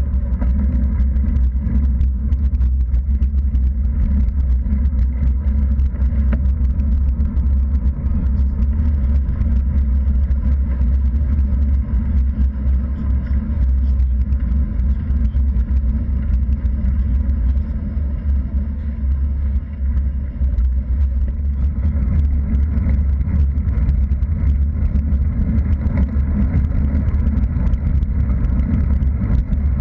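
Wind buffeting a bike-mounted action camera's microphone during a road bike ride, a loud, steady low rumble mixed with tyre noise on tarmac.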